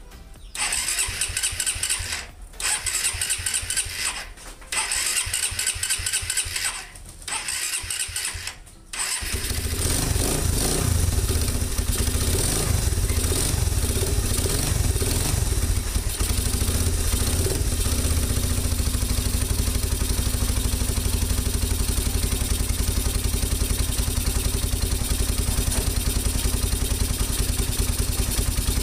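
Suzuki Raider 150 single-cylinder engine being started on the starter in four cranking bursts of about two seconds each. It catches about nine seconds in and keeps running, uneven for a few seconds and then steady at idle. This is the first start on a newly fitted 28 mm Oko carburettor.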